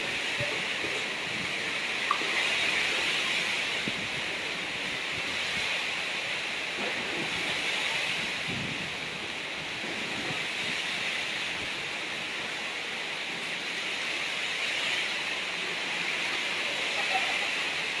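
Heavy rain and strong wind in a storm: a steady rushing hiss, with a brief knock about two seconds in.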